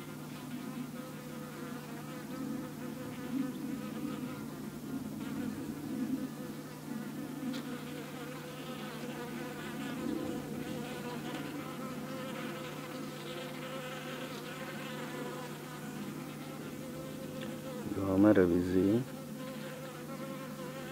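Honeybees buzzing steadily around an opened brood comb. About 18 seconds in, a louder, wavering buzz rises and falls for about a second.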